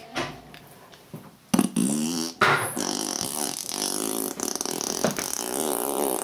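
A person blowing a long raspberry with the voice behind it, a loud buzzing lip trill with a wavering pitch that starts about a second and a half in, breaks briefly, then carries on.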